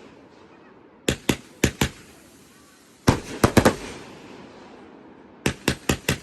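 Fireworks exploding in three quick clusters of loud bangs, each burst a rapid string of sharp cracks. The middle cluster trails off in a rumble.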